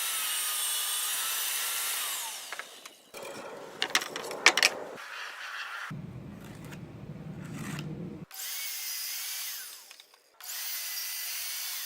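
Electric drill running in several separate bursts, its whine drifting up and down in pitch, with a few sharp knocks about four to five seconds in and a lower hum a little later.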